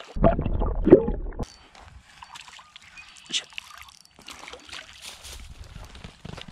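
A hooked crappie splashing at the water's surface, loudest for about the first second and a half. Then fainter rustling and scraping as the fish is pulled through dry reeds and grass onto the bank.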